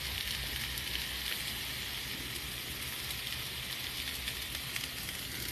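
Sliced bell peppers, onions and meat sizzling on a hot griddle on a gas grill, just sprayed with oil: a steady crackling hiss.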